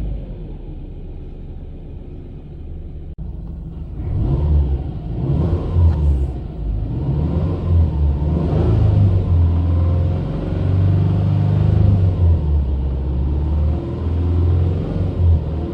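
Subaru Legacy BP5's EJ20 turbocharged flat-four engine running with a heavy low rumble, getting louder about four seconds in, its pitch rising and falling several times. The owner is chasing an abnormal engine noise that a change from 5W-30 to 10W-50 oil did little to improve.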